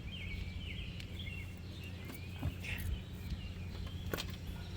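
Birds chirping over a steady low hum, with a few sharp clicks, the clearest near the end.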